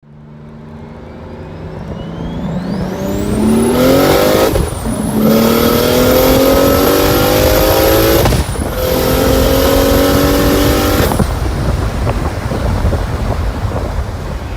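Car engine accelerating hard through the gears, revs climbing with a high whine, with two upshifts about four seconds apart before the driver lifts off.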